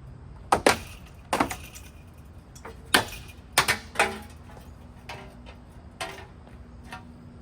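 A run of sharp cracking knocks, about eight at irregular intervals, as of hard pieces striking each other. A faint steady hum comes in about four seconds in.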